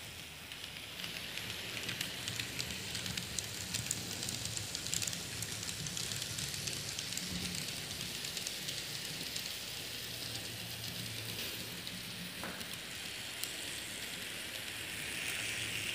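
Kato DF200 model diesel locomotive running on its track with passenger cars: a steady crackling hiss of wheels on rail with a low motor hum underneath.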